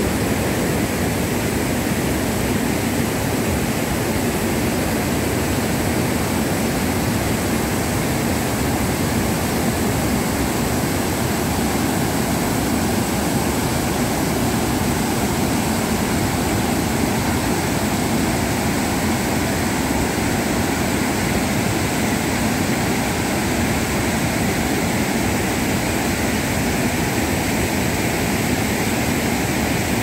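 A waterfall in monsoon flood: a muddy, swollen river pouring over rock ledges in a steady, loud rush of water.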